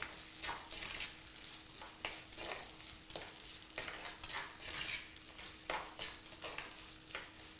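Steel spatula stirring shallots and curry leaves frying in oil in a clay pot: irregular scraping strokes about once or twice a second over a soft sizzle.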